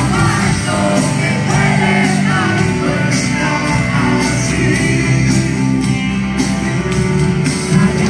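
Live rock band playing a song with a man singing lead over guitars, bass and drums, recorded from the crowd at a stadium concert.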